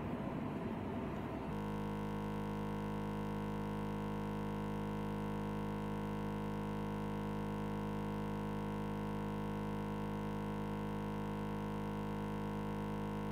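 Background music: one steady held chord that does not change, coming in about a second and a half in after a short stretch of rough noise.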